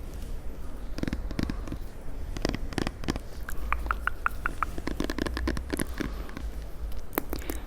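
Fingernails tapping and handling small items from a handbag, close to the microphone, in a string of irregular light clicks and taps, with a quick run of about seven even, pitched taps midway. A steady low hum runs underneath.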